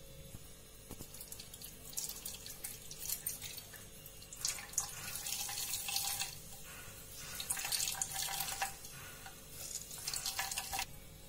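Coconut milk trickling and splashing into a steel pot as wet ground coconut is squeezed by hand through a cloth. It comes in a few spells of a second or two, with a faint hiss.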